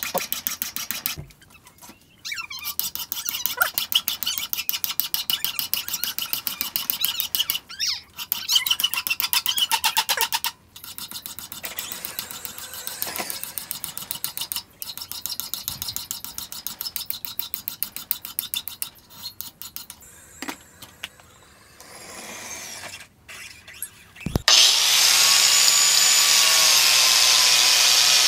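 A hand file rasping back and forth across steel clamped in a bench vise, in quick scraping strokes broken by short pauses. Near the end an angle grinder starts up and runs loud and steady.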